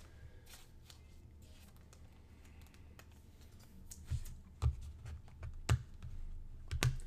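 A trading card being handled and slid into a clear plastic sleeve and a rigid top loader: soft plastic rustling, then several sharp clicks and light knocks in the second half. A steady low hum runs underneath.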